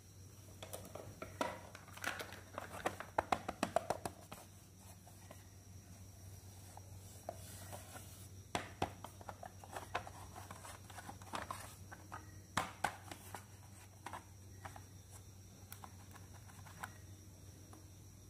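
Hands handling and opening a hard-plastic parrot-shaped toy makeup compact: scattered clicks, taps and light rubbing of plastic in small clusters, over a low steady hum.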